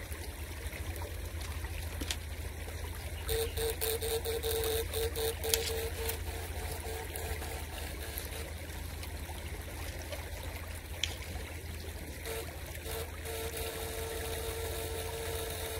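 Shallow stream water trickling and stirring around rocks as the bamboo poles of an electric fishing rig are worked in it. A steady hum sits underneath, and a steady humming tone comes in broken pieces from about three seconds in and runs unbroken again near the end.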